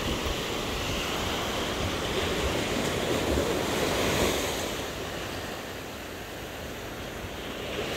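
Small surf breaking and washing up a sandy beach: a steady rush of waves that swells about four seconds in, eases off, then builds again near the end.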